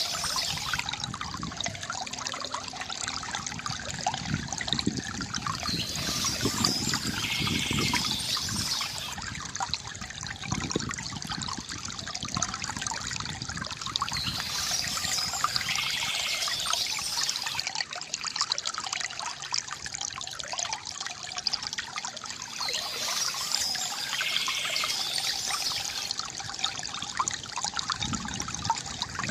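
Water from a bamboo fountain trickling and splashing steadily into water, with a short bird call coming back about every eight seconds.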